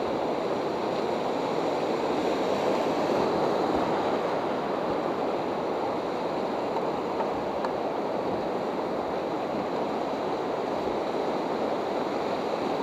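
Whitewater rapids rushing steadily around an inflatable raft, a dense, even roar of churning water close to the microphone.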